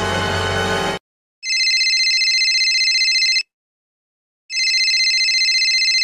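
The last held chord of a 'dun dun dun' dramatic music sting, cutting off about a second in. Then a telephone rings twice with a fast trilling ring, each ring about two seconds long with a short gap between them.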